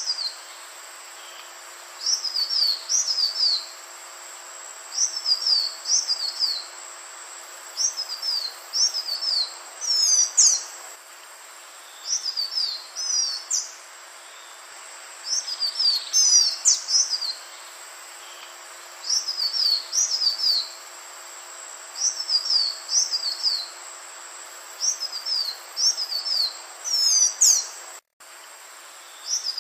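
Green iora (Aegithina viridissima) singing: short phrases of quick, sweeping high whistled notes, repeated about every two to three seconds over a steady background hiss. The sound cuts out for a moment near the end.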